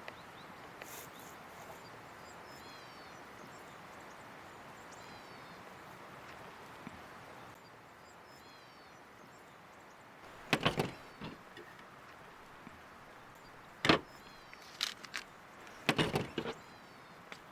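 Steady rush of the Mann River flowing, with faint bird chirps over it. In the second half come a series of sharp knocks and clatters, the loudest a single knock about two thirds of the way in.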